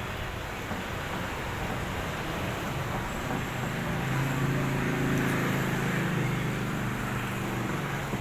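Steady road-traffic noise, with a motor vehicle's engine hum swelling as it passes close and fading again near the end.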